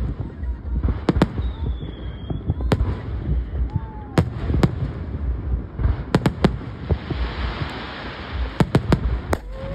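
Fireworks display: aerial shells bursting in sharp, irregularly spaced bangs over a steady low rumble, with a denser crackling patch about seven to eight seconds in.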